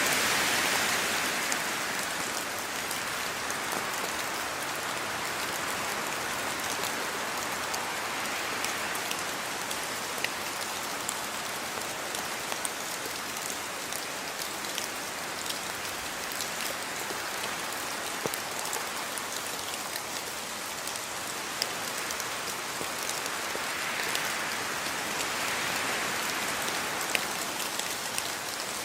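Steady rain falling, a dense even hiss with many individual drops ticking sharply through it. It swells slightly a few seconds before the end.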